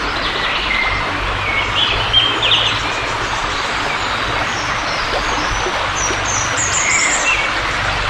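Woodland songbirds singing: short whistled notes and quick trills from several birds, with a few high phrases near the end, over a steady background hiss.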